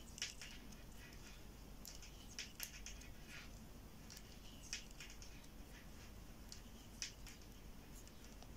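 Faint, irregular light clicks of metal knitting needles as knit stitches are worked.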